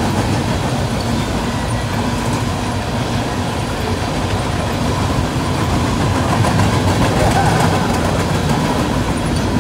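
Freight train of covered hopper cars rolling past: steady noise of steel wheels running on the rails.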